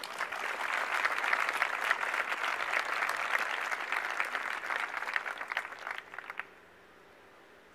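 Audience applauding, a dense patter of many hands clapping that dies away about six and a half seconds in.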